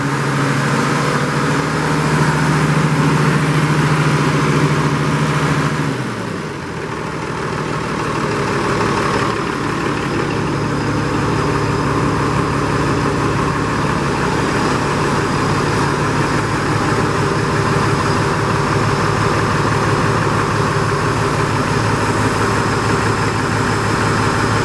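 International Harvester 350 Utility tractor engine running steadily. About six seconds in it drops to a slower idle, with even firing beats audible from then on.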